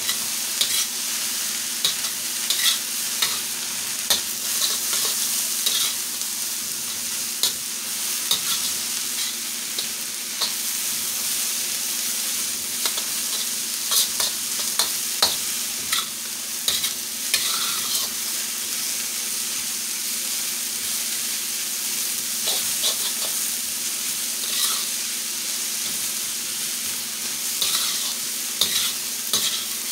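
Chopped cabbage, onion and scallions sizzling in a hot steel wok, with a metal spatula scraping and clicking irregularly against the wok as the vegetables are stir-fried.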